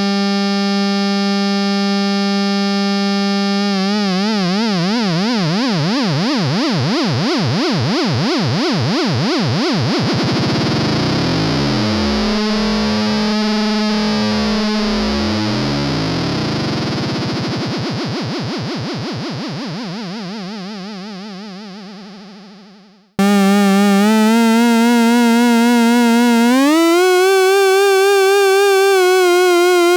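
Moog Werkstatt-01 analog synthesizer oscillator holding one buzzy note while its LFO modulates the pitch. A steady tone starts to wobble about four seconds in, the vibrato speeds up into a fast warbling growl, and the sound fades away. A new note then comes in and jumps between a lower and a higher pitch every few seconds.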